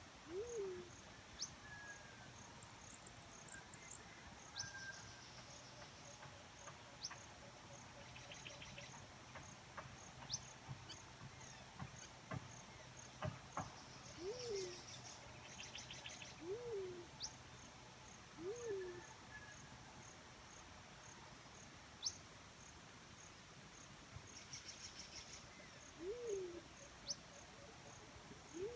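Black-chinned fruit dove giving short, low hoots, each rising and then dropping in pitch. They come singly at irregular gaps, with a long pause early on and then several a couple of seconds apart. Behind them an insect chirps in a steady, evenly pulsed high rhythm, and a few other birds give brief high notes.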